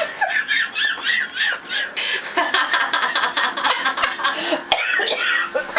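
Laughter in a run of quick, repeated ha-ha pulses, growing fuller about two seconds in, with a couple of light knocks near the end.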